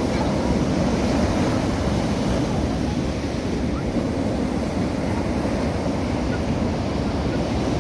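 Sea surf washing steadily onto a beach, with wind buffeting the microphone.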